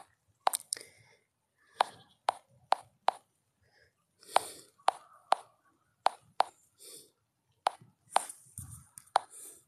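Fingers tapping on a smartphone held close to its microphone: about a dozen sharp, irregular clicks with faint rustling between them.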